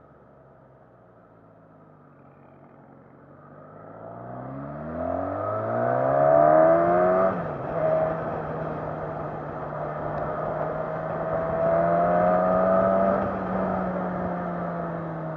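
Suzuki Katana's inline-four engine, quiet at first, then accelerating hard with its pitch climbing steeply from about four seconds in. About seven seconds in the pitch drops sharply at an upshift, and the engine then runs at steady revs over wind and road rush.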